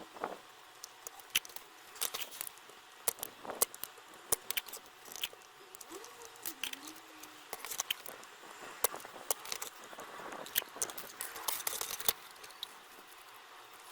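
Irregular sharp clicks and taps with light rustling, as small tools and parts are handled on a workbench during electronics repair work.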